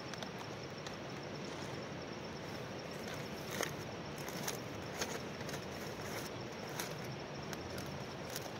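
Outdoor ambience: a steady rushing hiss, a thin high insect-like hum held throughout, and sharp clicks scattered irregularly through it.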